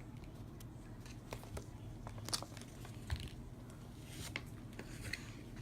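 Light handling noises: scattered small clicks and rustles of small plastic toy figures and paper being handled, with a few sharper ticks over a low room hum.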